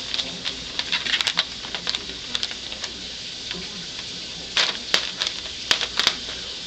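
Loose plastic shrink-wrap on a cardboard tray crinkling and crackling as a kitten paws and climbs on it. Irregular crackles come in clusters, with a burst of sharper ones about four and a half to six seconds in.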